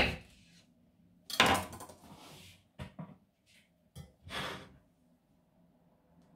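A kitchen knife chops through a banana into a plastic cutting board with a sharp knock, followed by a few short clatters and knocks of handling as a plastic cooking-oil bottle is picked up and its cap opened.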